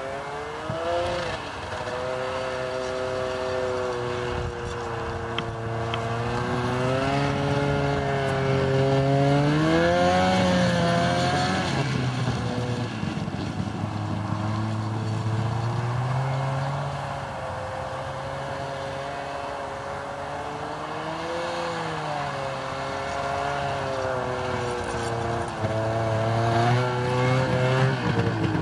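2009 Arctic Cat Bearcat XT 570 snowmobile's two-stroke engine running, its pitch rising and falling several times as it speeds up and slows down.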